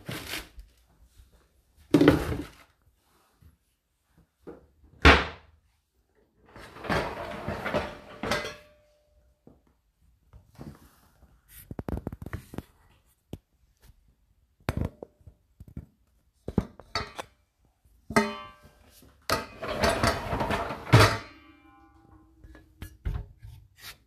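Irregular knocks, clatters and rustling from household items being handled in a kitchen cupboard, with short quiet gaps between them. A clink about three-quarters of the way through rings on briefly.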